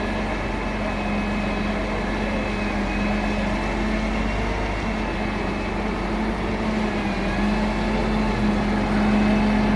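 Engine of the lifting machinery used to pull equipment out of a borehole, running steadily at constant speed with an even hum.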